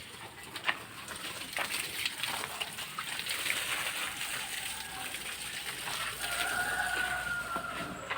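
Construction work noise: scattered sharp knocks over a steady rough hiss, with a brief held tone about six seconds in.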